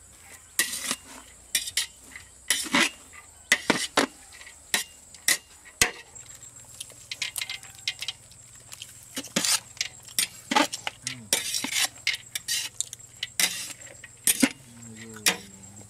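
Metal slotted spatula clinking and scraping against a large aluminium pot as a batch of fried rice is mixed, in quick, irregular strokes.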